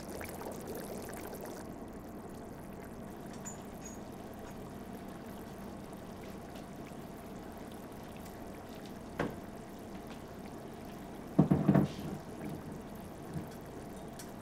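Water bubbling at a rolling boil in a pot on a gas stove, a steady rushing sound. About nine seconds in there is a single knock, and around eleven and a half seconds a short clatter of kitchen things being handled.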